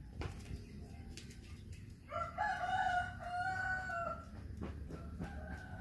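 A rooster crowing: one long cock-a-doodle-doo of about two seconds starting about two seconds in, then a fainter crow beginning near the end. A few light clicks are heard in between.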